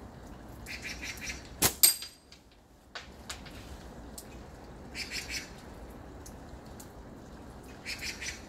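A slingshot shot: a sharp snap as the bands release, then about a fifth of a second later a sharp ringing metallic ping as the shot strikes. Small birds chirp in three short bursts over a steady hiss of rain.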